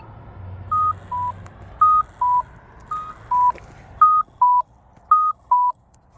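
Polara iNS accessible pedestrian signal push button sounding a repeating two-note electronic beep, a higher tone then a lower one, about once a second, with a single locator-tone click at the start.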